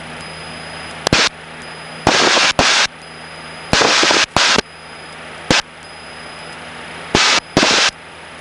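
Cessna 152's four-cylinder engine droning steadily through the headset intercom, broken by about six short, loud bursts of rushing noise and two sharp clicks from the headset microphone.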